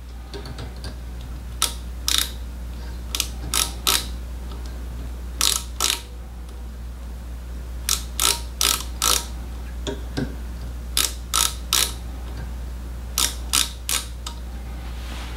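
Ratchet stop of a digital micrometer clicking as its spindle is closed on a nickel silver ferrule to measure its diameter: short runs of two to four clicks, six times over.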